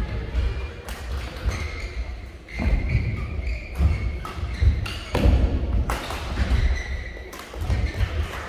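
Badminton rally: several sharp racket strikes on the shuttlecock, with players' footsteps thudding on the court.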